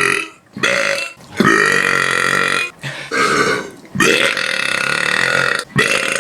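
A person belching loudly, a string of about five long, drawn-out burps one after another with short breaks between them.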